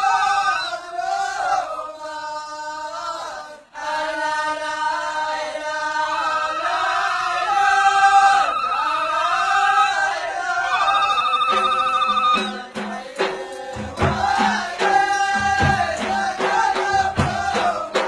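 Ahwach song: men's voices chanting a melody in long, wavering held notes. About two-thirds through, drums come in beating a steady rhythm under the singing.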